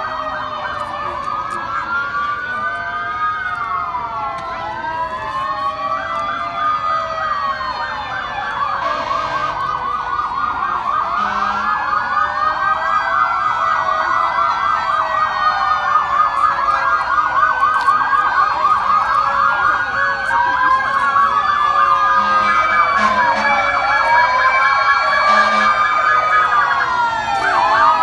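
Several emergency vehicle sirens sounding at once, slow rising-and-falling wails overlapping with a fast yelp in the middle, growing louder as the vehicles approach.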